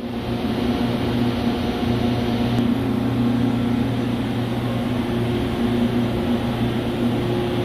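Large CNC lathe running, a steady machine hum with several steady low tones over a hiss.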